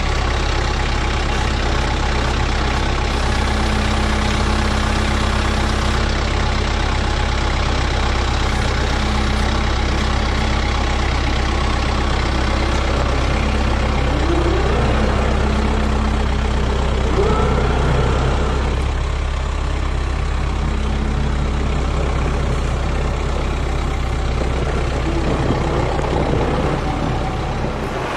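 Kubota M6060 tractor's diesel engine running steadily while its front loader works a round hay bale. A few brief rising tones come about halfway through.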